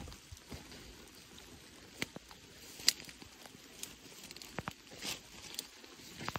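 Footsteps pushing through tall dry grass and brush: a steady rustle with scattered crackles and snaps of stems, the sharpest about three seconds in.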